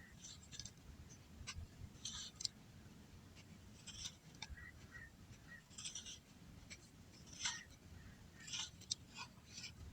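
Something crisp and brittle being crumbled in short, irregular bursts of dry crunching and crackling every second or two, with a few sharp clicks between.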